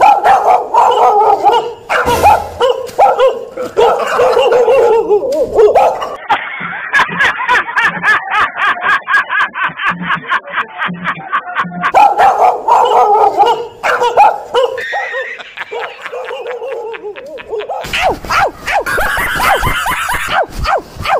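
Recorded dog barking played loudly from a portable speaker as a fake dog, a continuous stream of barks with a fast run of yaps in the middle.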